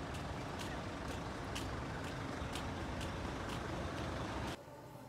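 Footsteps in slide sandals on paving stones, about two steps a second, over a steady low rumble of road traffic. Both cut off suddenly near the end.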